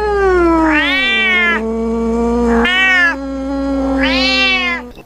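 Cat meowing sound effect: three long, drawn-out meows, each rising and falling in pitch.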